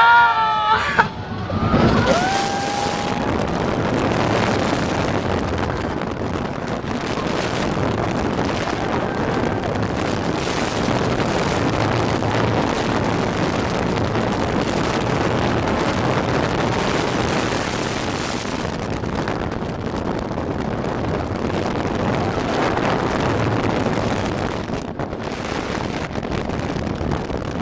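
Wind rushing over the microphone and a steel roller coaster train rumbling along its track, heard from the front seat at speed, with a rider's short rising yell in the first two seconds.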